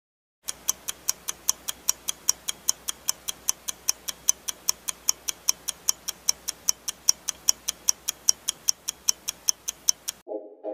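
Countdown timer ticking sound effect: sharp, even clock ticks at about four a second, starting about half a second in and stopping just before the end.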